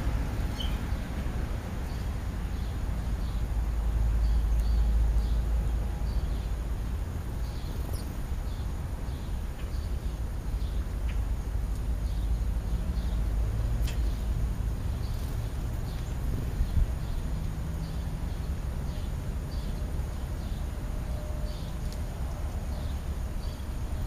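House sparrows chirping in short, scattered calls over a steady low rumble, with a couple of sharp clicks.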